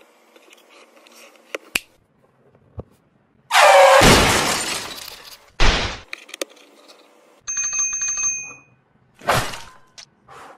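Cartoon sound effects: a loud crash with a shattering tail that fades over about two seconds, a second short crash, then a bell ringing for about a second and a quick whoosh near the end.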